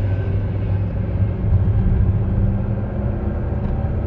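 Low, steady rumble of a car's engine and tyres heard from inside the cabin while driving slowly, with a steadier engine hum coming in about halfway through.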